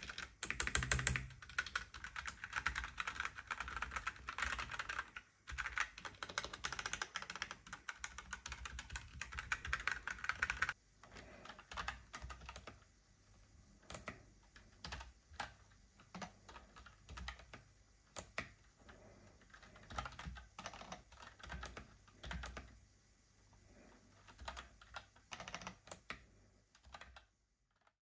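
Typing on a hand-wired mechanical keyboard with red switches and 3D-printed low-profile keycaps fitted with rubber rings to quiet them. The keystrokes come fast and close together for about the first ten seconds, then as sparser, separate clacks.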